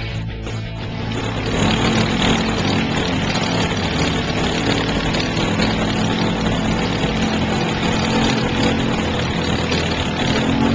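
ATV engine running steadily with water splashing as it drives through a shallow river, louder from about a second and a half in.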